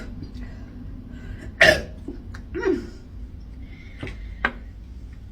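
A woman's short throat sounds while chugging a fizzy drink: a sharp cough-like catch about a second and a half in, a brief falling grunt about a second later, and two faint clicks near the end.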